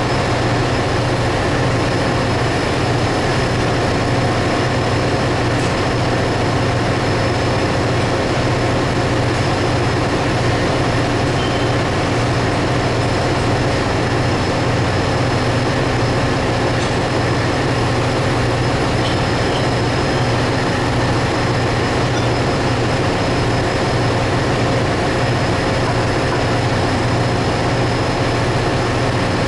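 Ship's engine-room machinery running steadily: a loud, constant low hum with a few faint steady whines above it.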